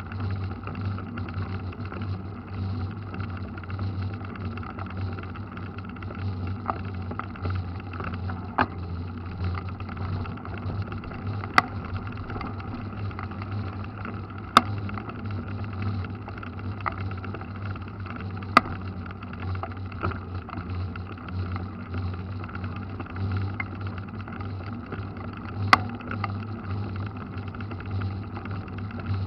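Mountain bike riding along a wet asphalt road, heard from a camera mounted on the bike: a steady low rumble of tyres, wind and frame vibration, with a handful of sharp clicks scattered through it.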